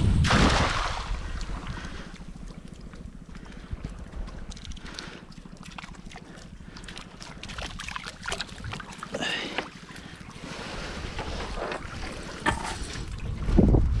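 A cast net splashing down onto shallow water at the start, then water splashing and dripping as the wet net is hauled back up, with a louder bump near the end. Wind rumbles on the microphone throughout.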